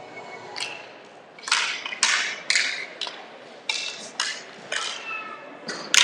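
Inline hockey play after a face-off: a rapid run of sharp strikes and scrapes, about two a second, from sticks hitting the ball and rink floor and skates pushing off. The loudest strike comes near the end.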